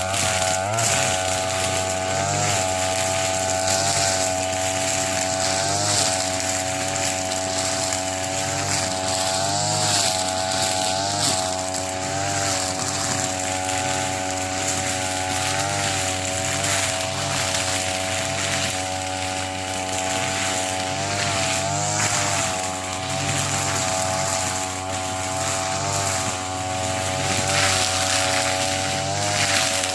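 A TB33 petrol brush cutter running at high speed through thick grass. Its engine note sags and recovers now and then as the cutting head bites into the grass.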